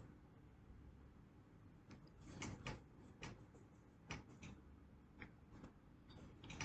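Faint, scattered taps and scrapes of a cup and a toy knife working kinetic sand, a handful of short clicks spread over a few seconds.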